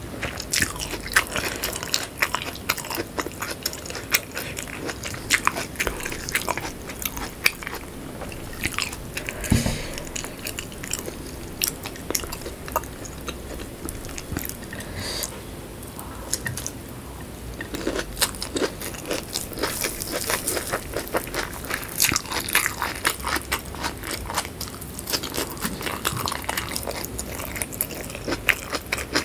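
Close-up chewing and crunching: a person biting into and chewing whole shallots in sambal, with many quick irregular crunches and wet mouth sounds.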